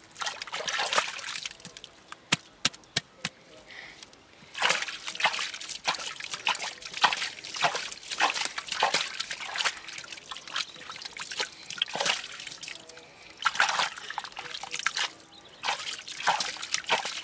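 Hands scooping wet mud and water out of a dug hole: irregular splashing and sloshing scoops, with a few sharp clicks about two to three seconds in.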